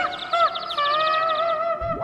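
Background music with held, slightly wavering notes and a fast flutter of repeated high notes on top that fades out near the end.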